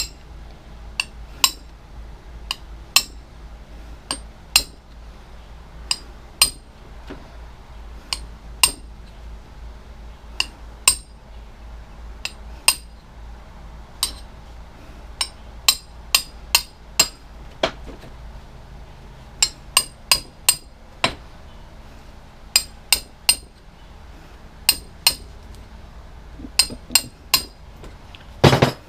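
Hammer striking a metal punch again and again, sharp ringing taps at an uneven pace with short pauses, punching copper out of the stripped-down electric power washer.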